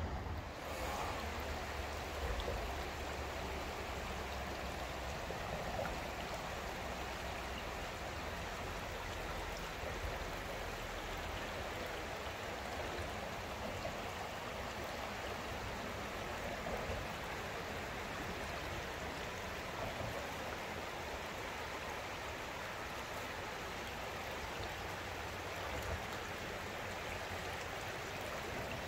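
Shallow river water flowing steadily over rocks and stones.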